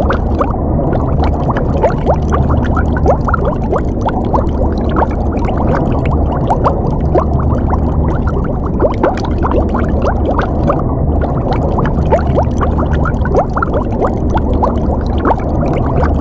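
Underwater water ambience: continuous bubbling and gurgling, with many small bubbles popping up in quick succession over a steady low rumble.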